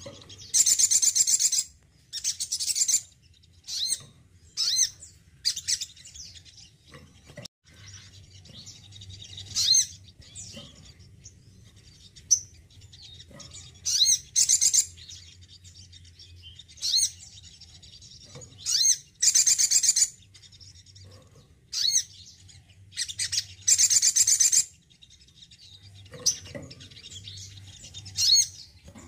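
Male sogon, a small nectar-eating sunbird, singing: bursts of high, rapid chirps and trills, each under a second long, repeated every second or two.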